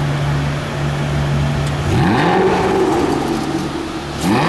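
Aston Martin DB9 Volante's 5.9-litre V12 idling steadily, then revved: a sharp rise and fall in pitch about two seconds in, and a second quick rev near the end.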